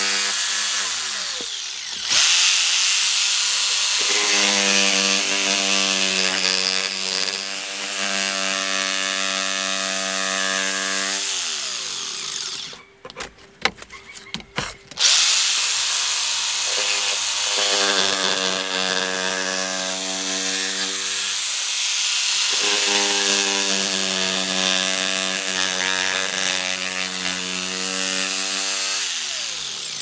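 Corded jigsaw cutting a circle out of thin galvanized sheet metal, its motor running with a steady whine and rasp. It stops about twelve seconds in, with a few clicks and taps, starts again a couple of seconds later, and winds down near the end.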